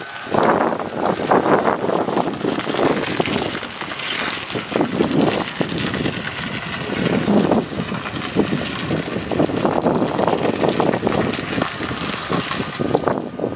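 Gusty wind buffeting the microphone over the sound of a Ford F-150 pickup driving slowly past on pavement.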